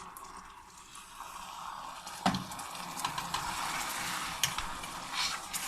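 Hot caramel sizzling and bubbling hard in a pan as cream is stirred into the burnt sugar, with a utensil clicking against the pan; a sharp knock a little over two seconds in is the loudest sound.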